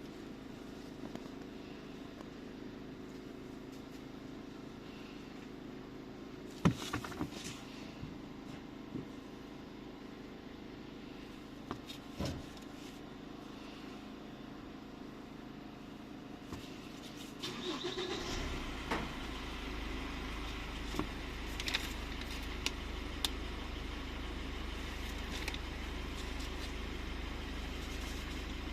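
Steady engine hum with a few sharp clicks and knocks. About two-thirds of the way through, a deeper low rumble comes in and keeps going.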